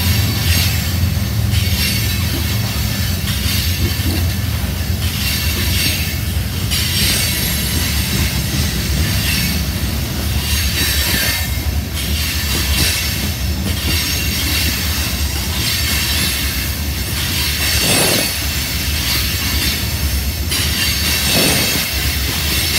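Freight train of covered hopper cars rolling past close by at a steady speed: a deep rumble of steel wheels on the rails, with repeated swells of clatter and wheel squeal as each car's wheel sets go by.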